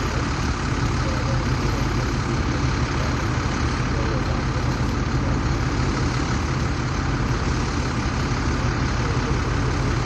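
BC Rail diesel-electric locomotive idling with a steady, low engine hum.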